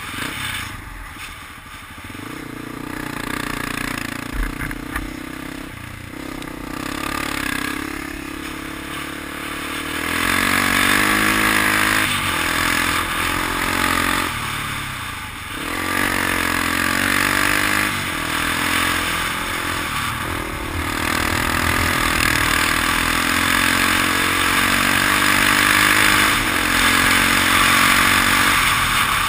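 Off-road vehicle engine revving up and down as it is ridden along a dirt track, louder from about ten seconds in.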